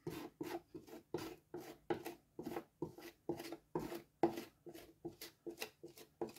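Metal spatula scraping and spreading plaster compound (MAP) over a patched hole in plasterboard, in short quick strokes about three a second.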